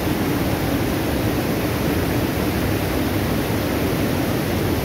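Steady rushing of muddy floodwater pouring over a reservoir spillway and churning around people wading in it.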